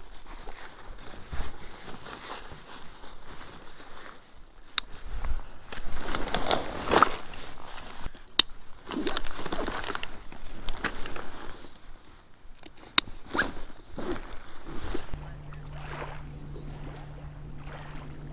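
Backpack being handled and unpacked: fabric rustling, a zipper, and several sharp clicks of buckles or gear. About fifteen seconds in this gives way to a steady low hum.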